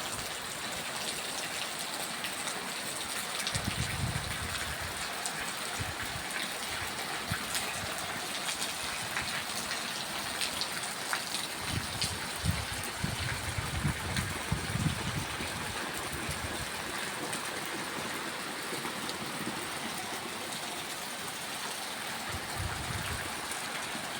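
Steady rain falling, a constant hiss dotted with many sharp drop hits. Low rumbles come and go a few seconds in, through the middle and near the end.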